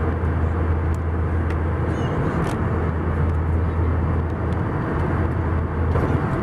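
Steady in-flight cabin noise of an Airbus A320, engine and airflow drone with a strong low hum. A few sharp plastic clicks in the first few seconds as the seatback tray table's latch is turned and the table let down.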